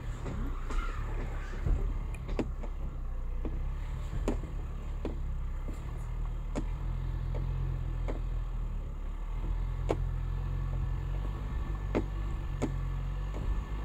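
Ford Bronco engine running low and steady as the truck crawls in four-wheel-drive low range, with a dozen or so sharp clicks and knocks scattered through it as the tyres roll over rocks and gravel.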